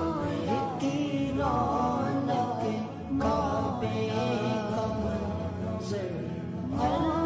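A naat, an Urdu devotional song praising the Prophet, sung in long, gliding melodic lines over a steady low drone, in a slowed-down edit with heavy reverb.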